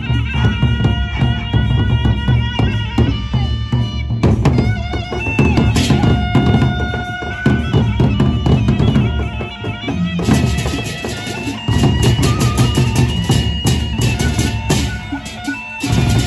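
Lombok gendang beleq ensemble playing: large double-headed barrel drums beaten in a fast driving rhythm, with clashing hand cymbals and held melodic tones above. The beat breaks off briefly a few times, and the cymbals crash harder and thicker from about ten seconds in.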